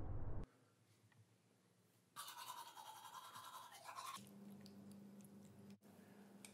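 Toothbrush scrubbing teeth in a quick run of rapid strokes lasting about two seconds, followed by a steady low hum.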